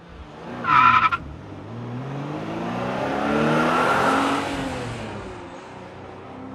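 Car engine revving, with a short loud tyre squeal about a second in. The engine note then rises and falls, swelling to its loudest about four seconds in and fading away.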